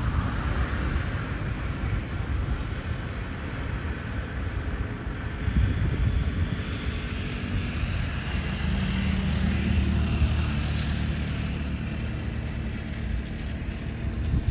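Rain and wind noise on the microphone, with a low steady engine drone coming in from about six seconds in and growing louder in the second half.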